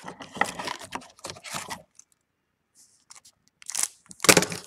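Baseball card packs and cards being handled, with paper wrappers crackling and tearing. There is a run of rustling over the first two seconds, a short pause, then a louder burst of tearing and crinkling near the end.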